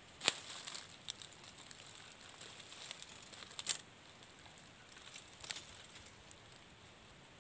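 Faint, scattered crackles and rustles from a small wood fire burning in dry leaf litter and feet stepping through the dry leaves, with a few sharper snaps standing out.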